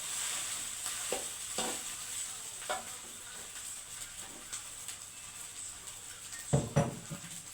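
Food sizzling in a frying pan while being stirred, with a steady hiss and a few knocks of the spatula against the pan, the loudest two close together near the end.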